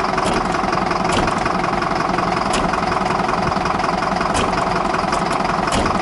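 Small Mercedes diesel engine idling steadily and loudly, with a few sharp clicks over it.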